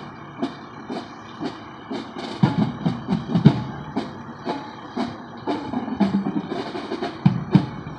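Marching band drums beating a steady parade cadence, about two beats a second.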